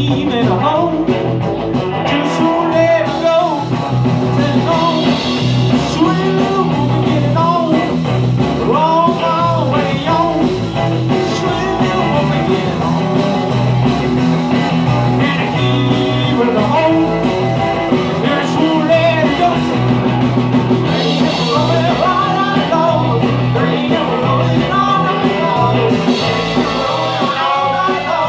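Live band playing loudly: a male singer with electric guitar, electric bass and drums.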